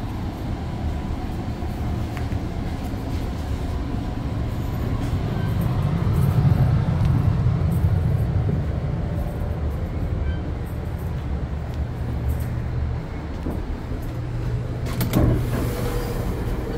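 Steady low rumble of a moving commuter train, heard from inside a Bombardier BiLevel coach, swelling for a couple of seconds about six seconds in. A few sharp clacks sound about fifteen seconds in.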